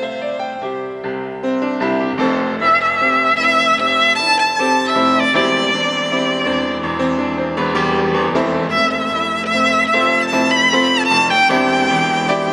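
Solo violin playing a slow melody with vibrato over piano accompaniment, swelling louder about two seconds in.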